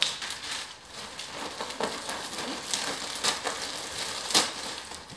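Plastic packaging bags rustling and crinkling as hands dig through a cardboard box, with a few sharper crackles, the loudest about four seconds in.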